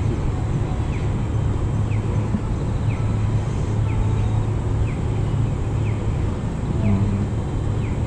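Night-time city ambience: a steady low rumble of distant traffic, with a faint high chirp repeating about once a second.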